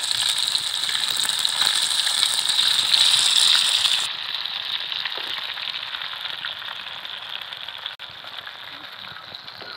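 Snakehead fish slices sizzling as they shallow-fry in hot oil in an iron pan: a steady hiss, louder and brighter for the first four seconds or so, then quieter.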